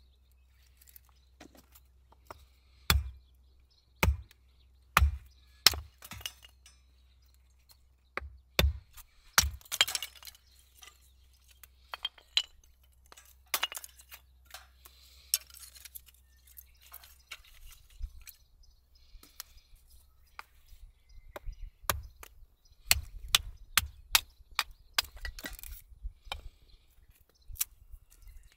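Hatchet splitting firewood into thin kindling on a wooden chopping block: sharp knocks and cracks as the blade strikes and the wood splits. The strikes are spaced about a second apart at first and come as a quicker run of taps and snaps in the last third.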